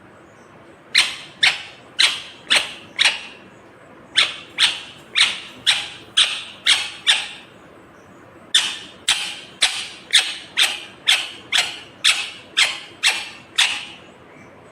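Ringneck parakeet giving loud, sharp, repeated screeching calls, about two a second, in three runs with short pauses between them.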